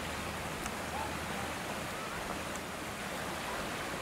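Steady hiss of outdoor background noise, with faint, distant voices now and then.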